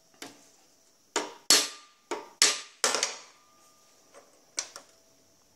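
A hand hammer strikes saw teeth resting on a small anvil's bevel, setting (bending) the teeth of a handsaw. There are about half a dozen sharp metallic blows in under three seconds, each with a brief ring, then a lighter knock near the end.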